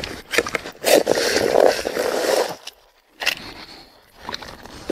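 Corn kernels being scraped off fresh cobs into a bowl: a rough scraping, in two stretches with a short pause about three seconds in.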